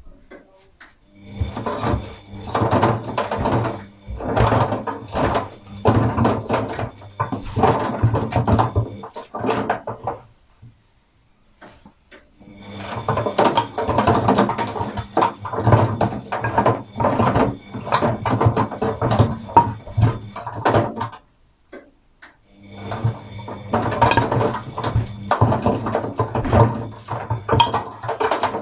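Atlant 50U101 washing machine drum turning in spells of about nine seconds, each broken by a pause of about two seconds, while paint rollers and brushes clatter inside it over a steady motor hum.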